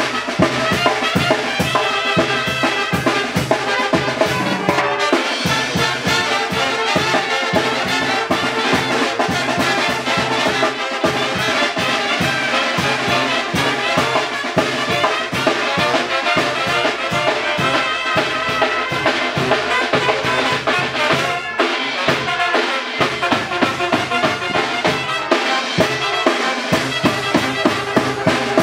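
Brass band music, wind instruments over drums keeping a steady beat.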